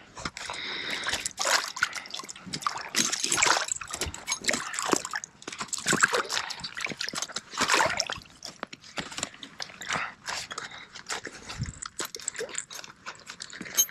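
Water sloshing, splashing and dripping as a trapped otter and a steel spring trap are handled in shallow water, with irregular clicks and knocks throughout.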